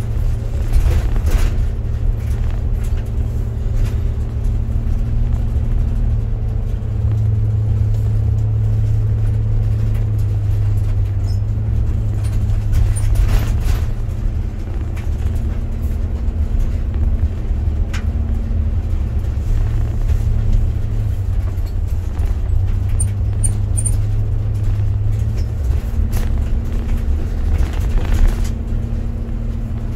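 Car driving, heard from inside the cabin: a steady low rumble of engine and road noise, with the engine note shifting slightly now and then and a few brief light clicks.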